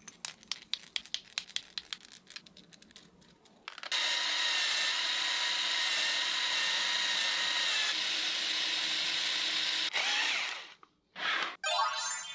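Light clicking as 3D-printed plastic wheels are stacked onto a bolt. Then, about four seconds in, a cordless drill spins the stack of wheels while a metal file is held against their grooves to smooth them: a steady whirring and scraping for about six seconds that cuts off suddenly. A short burst of the drill follows near the end.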